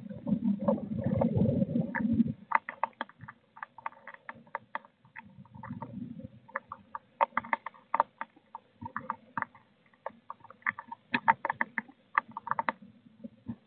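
A blue tit roosting in a wooden nest box, shifting about: a low rustling rumble for the first two seconds, then a long irregular run of small sharp clicks and scratches as it moves on the wooden floor and walls.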